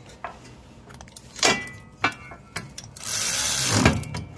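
Right-angle power tool with a socket tightening the nuts on a riding mower's friction-disk hub: several sharp metallic clicks and knocks as the socket is fitted, then the tool runs steadily for about a second near the end.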